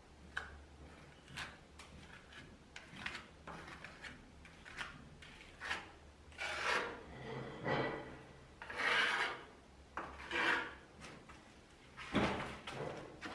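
Hand tool scraping across a plaster wall in a series of irregular rasping strokes, some short and some drawn out, the longest about halfway through.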